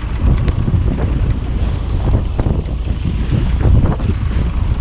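Wind buffeting the microphone on a small fishing boat at sea: a steady low rumble.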